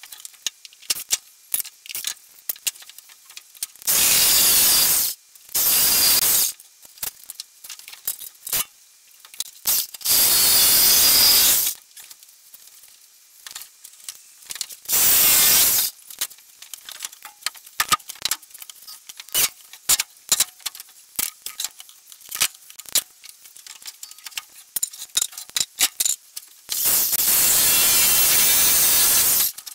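Corded reciprocating saw cutting through timber boards, run in five short bursts of one to three seconds, the longest near the end. Between the cuts, loose boards and tools knock and clink as they are handled.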